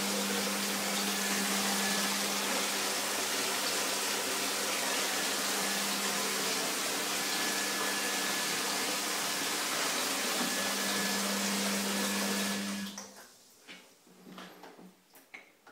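Water rushing into a corner bath from a tapless bath filler fed by a concealed thermostatic valve: a loud, steady rush with a steady low hum under it. It shuts off about thirteen seconds in, leaving a few light knocks.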